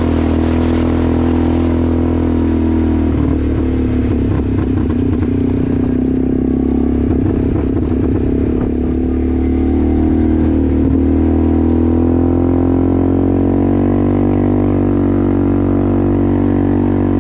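ATV engine running at a steady cruising speed while riding a dirt trail, with some rattling and bumping in the middle and the engine pitch creeping up a little near the end.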